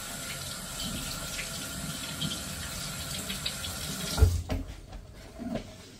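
Kitchen tap running while hands are washed under it. The water stops about four seconds in with a single thump, followed by a couple of lighter knocks.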